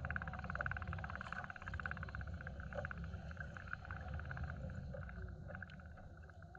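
Spinning reel being cranked: a rapid, even clicking rattle of its gears that fades out about five seconds in, over a steady low rumble.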